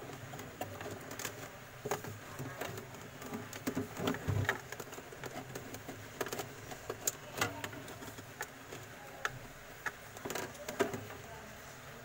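Small, irregular clicks, taps and rustling from hands handling refrigerator wiring and small white plastic wire connector plugs.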